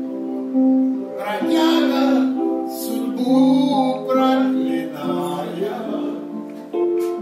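Jazz played on a Casio Privia digital piano: chords held in long steady notes that change about once a second, with a man singing along over them in short phrases.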